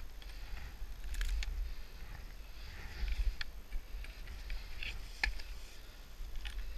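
Snow and ski clothing rustling and crunching against the camera as a skier struggles in deep powder, over a low rumble of handling on the microphone. Scattered sharp clicks, the loudest about five seconds in.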